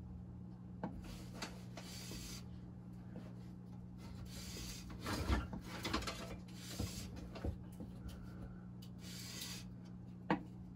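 Steel wood-turning knife blade stroked back and forth on 1500-grit sandpaper over a glass plate: a soft rasping rub about once a second. A steady low hum runs underneath.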